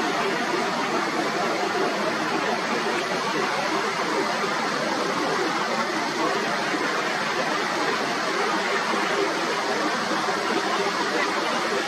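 Steady, even rushing noise with no distinct events, with little deep rumble in it.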